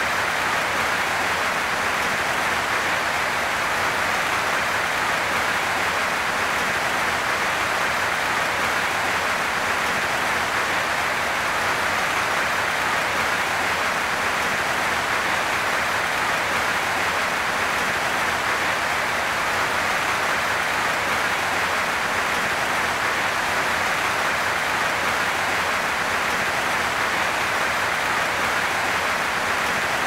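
Steady rain falling, a dense, even hiss that holds unchanged throughout.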